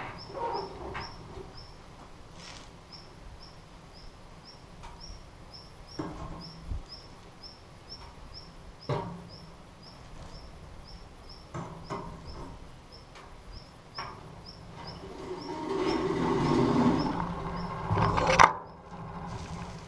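Scattered metal knocks and clatter from the door and tray of an old cooker's oven being handled, with a longer scrape about three-quarters of the way in and a sharp bang just after it. Faint high chirps repeat at an even pace in the background.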